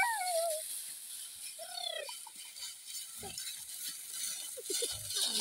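Two mules treading a heap of dried stalks to thresh it: sparse rustling of the straw and a few soft hoof thuds. A voice trails off at the very start, and there is one short call about two seconds in.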